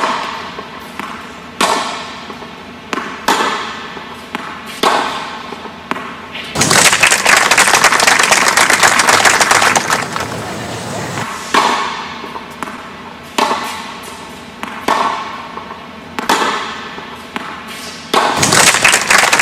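Tennis rally: ball hits with a short echo, about one every second and a half. Then applause breaks out for several seconds. A second rally of evenly spaced hits follows, and applause starts again near the end.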